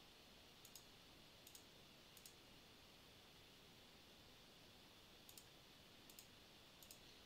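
Faint computer mouse clicks over a quiet background hiss: six quick press-and-release pairs, three in the first couple of seconds and three more near the end.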